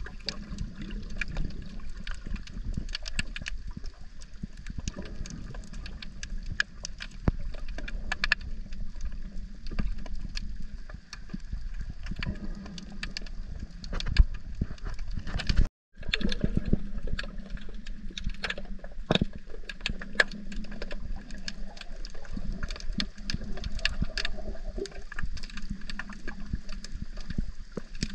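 Underwater sound from a camera held below the surface: a muffled, rumbling wash of seawater with many sharp crackling clicks throughout. It drops out for a moment about halfway through.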